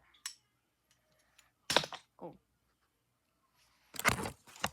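Plastic Lego pieces of a brick-built butterfly knife clicking and clattering as the knife is flipped open and shut. The sound comes in a few separate bursts, the loudest a dense clatter near the end.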